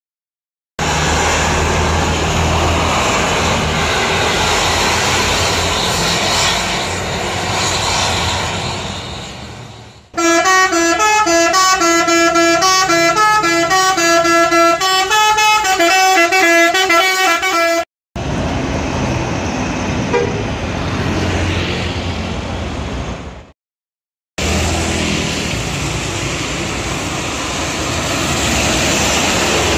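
Road traffic on a wet road: a truck and a coach bus running past, with engine drone and tyre hiss. In the middle comes an eight-second melodic tune of short stepping notes, played over a title card.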